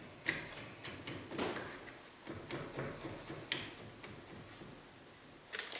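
Scattered light clicks and knocks with some soft scuffing, from a board and tools being handled and positioned against a table saw fence; the sharpest knock comes about a third of a second in and another about three and a half seconds in.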